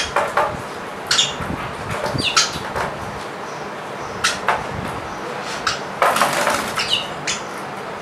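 A sparrow at a mirror, giving short high chirps among sharp taps, with a brief flurry of wing-fluttering about six seconds in.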